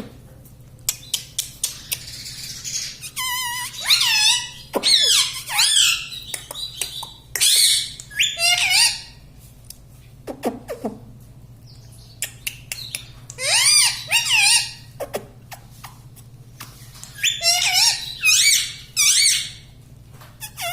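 Rose-ringed parakeet giving bursts of high, warbling squawks and chatter in several clusters, with a few short clicks near the start.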